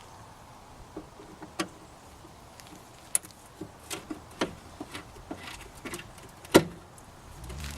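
Scattered clicks and knocks of hands and a flat-blade screwdriver working the plastic headlight assembly of a 2000 GMC Yukon, with one sharper knock about six and a half seconds in.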